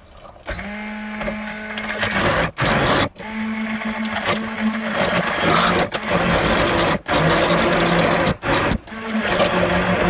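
Hand-held immersion blender switched on about half a second in, running in a pot of chunky tomato sauce to chop it fine. Its motor whine cuts out briefly several times and comes straight back.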